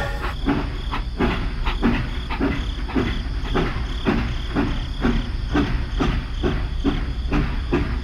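Miniature model train running along its track: a steady hum with a regular click a little over twice a second.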